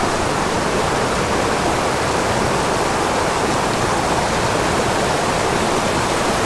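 Rushing water of a small, steep mountain creek tumbling over boulders in short cascades into a pool: a steady, unbroken rush.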